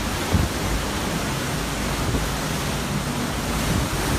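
Hurricane wind, estimated at 160 to 170 miles an hour, with driving rain, making a steady rushing roar. A gust buffets the microphone about half a second in.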